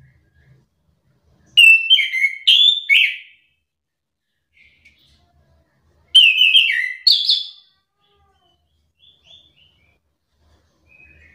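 Chestnut-capped thrush singing: two short, loud phrases of quick, varied whistled notes a few seconds apart, with a few soft notes near the end.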